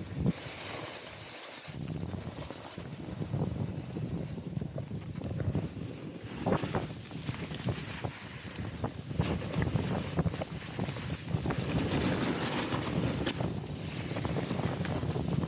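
Snowboard edge scraping and hissing over packed snow while carving, with wind rushing over the microphone.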